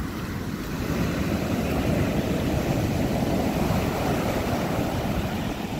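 Sea surf breaking and washing up a sandy beach: a steady rushing noise that swells slightly about a second in.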